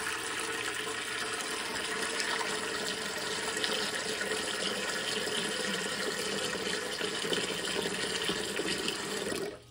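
Tap water running in a steady stream into a glass dish in a ceramic sink, filling it. The flow is shut off near the end.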